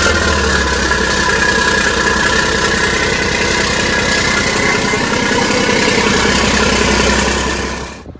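Caterpillar C27 V12 diesel of a Morbark 2355 flail chipper idling steadily and loudly while cold. The sound stops near the end.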